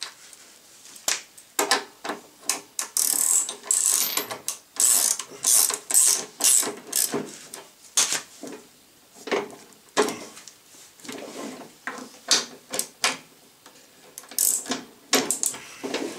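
Socket ratchet wrench clicking in repeated bursts of quick strokes as it tightens a lawnmower's wheel bolt.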